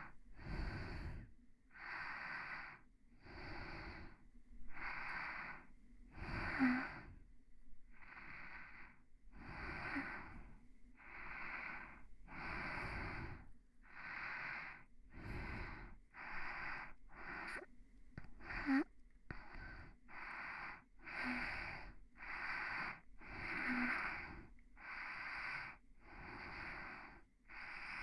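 Close-miked human breathing for ASMR: soft, airy breaths in and out, one after another about once a second in a steady rhythm.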